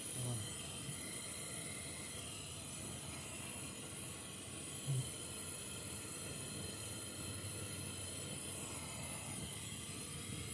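Steady hiss of gas flowing through a refrigerator's refrigerant pipework during flushing of a clogged line, with two light knocks, one just after the start and one about five seconds in.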